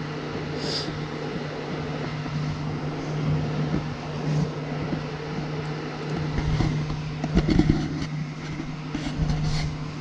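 Electric fan space heater running: a steady motor hum with the rush of its fan blowing air. A few faint knocks come near the end.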